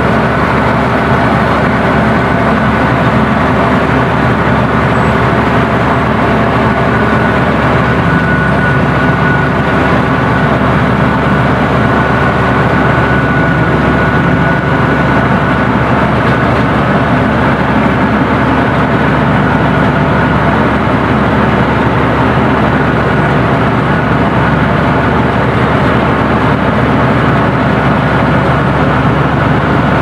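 Komatsu bulldozer's diesel engine running steadily while its blade pushes soil, heard close up from the operator's seat.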